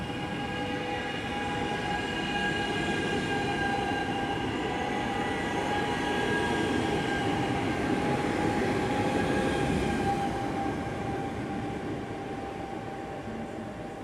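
Flytoget electric airport-express train moving away along the platform: a steady electric whine of several tones over wheel-on-rail rumble. It is loudest as the last cars pass close, then fades in the last few seconds as the train draws off.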